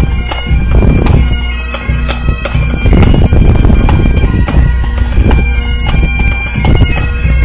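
Pipe and drum band marching and playing: bagpipes sounding a tune over their steady drones, with drum beats.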